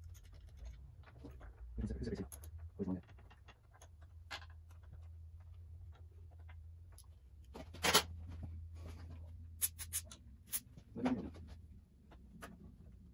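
Socket wrench working the lower-unit bolts on a 1960 Elgin 18 hp outboard: scattered irregular clicks and clinks of steel on metal, with a sharper clank about eight seconds in and a quick run of clicks near ten seconds. These are bolts that have never been off, painted over and stiff to turn. A low steady hum runs underneath.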